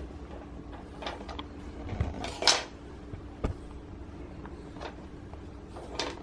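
Scattered clicks, knocks and brief rustles of Play-Doh and its plastic moulding toys being handled, over a faint steady hum. The loudest is a short rustle about two and a half seconds in, followed by a sharp click about a second later.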